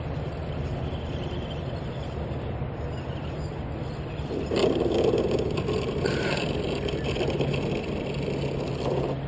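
Radio-controlled crawler truck driving over wood chips and up a slope, its electric motor and gears running steadily, louder from about halfway through.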